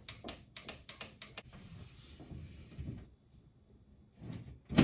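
Cable being handled and fed through a hole in drywall: a quick run of sharp clicks in the first second and a half, faint rubbing, then one loud knock near the end.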